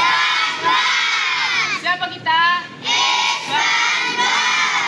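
A large group of children and young people shouting a cheer together in unison, in a few long shouts with short breaks between them.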